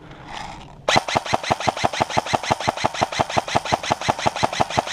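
Airsoft rifle firing a long full-auto burst, about nine shots a second, starting about a second in.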